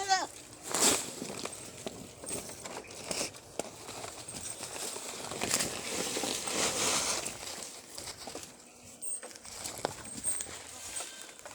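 The end of a goat's bleat right at the start, then irregular rustling and crunching with scattered clicks, as of movement through dry vegetation.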